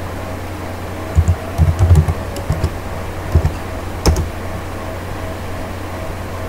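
Computer keyboard keys clicking in short, irregular runs during the first four seconds or so, as commands are typed into a console, over a steady low hum.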